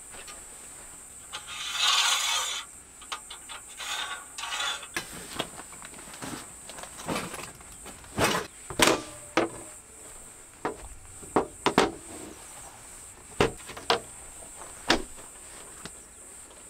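A folding metal-framed camp table and a fabric gear bag being handled and set in place: a rustling scrape about two seconds in, then a series of sharp clicks and knocks as the frame is settled and adjusted.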